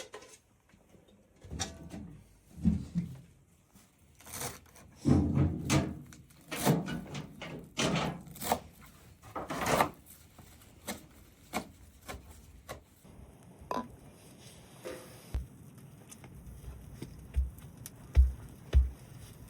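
A series of irregular knocks and thuds, denser with some rustling between about four and ten seconds in, and a few deep thumps near the end.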